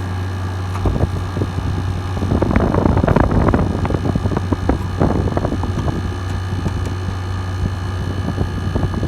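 Arctic King 5000 BTU window air conditioner running, its GMCC rotary compressor humming steadily under the fan's airflow. Irregular crackling rustle comes over it, loudest from about two to four seconds in.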